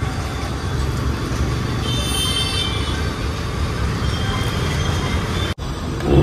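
Steady low rumble of background noise, with a brief high tone about two seconds in; it cuts out abruptly about five and a half seconds in and comes straight back.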